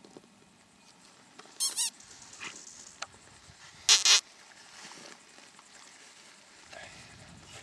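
Alpine chamois giving its alarm whistle, a sharp nasal blast of breath: a short double whistle about a second and a half in, then a louder, hissier double blast about four seconds in.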